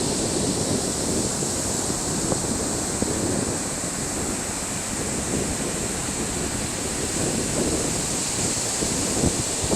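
Steady rushing of ocean surf with wind buffeting the microphone, over a faint steady high hiss.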